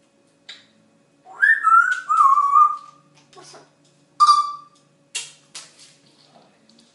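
African grey parrot whistling: a long wavering whistle that slides down in pitch, then a short falling whistle, with a few sharp clicks between.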